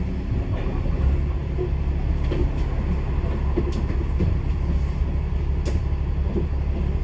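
A moving bus heard from on board: a steady low rumble of engine and road noise, with a few light rattles.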